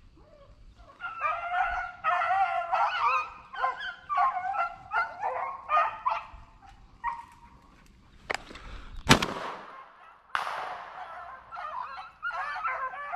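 Rabbit-hunting dogs baying on a chase: a quick run of short howling barks. About nine seconds in, a sharp crack is the loudest sound, followed by another noisy burst about a second later.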